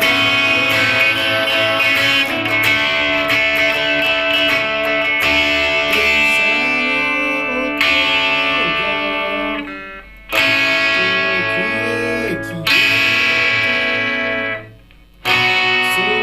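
Guitar strumming sustained chords, with a voice singing a melody over it from about six seconds in. The playing drops out briefly twice, a little after the middle and near the end.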